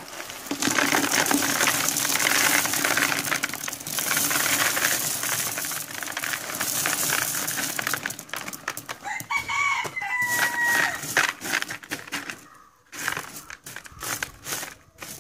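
Crushed stone chips poured from a plastic sack into a plastic bucket, a dense rattling clatter that lasts about seven seconds. About ten seconds in a bird gives a short call, and near the end there are scattered clicks as the stones are spread by hand.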